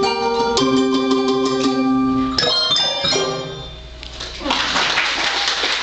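Handbell choir ringing sustained chords, closing with a few sharp struck chords about two and a half seconds in that ring out and fade. Audience applause starts about a second later.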